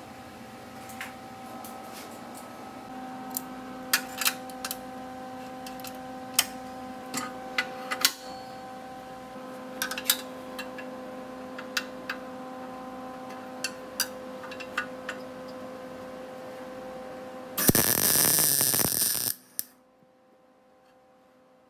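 Steady electrical hum with scattered sharp clicks and taps from handling the clamped steel parts. Near the end a MIG welder's arc crackles loudly for about a second and a half as a short tack weld, then cuts off.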